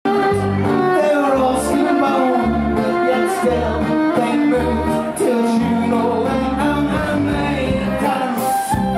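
Live folk-rock band playing: a bowed fiddle melody over strummed acoustic guitar and a drum kit keeping a steady beat.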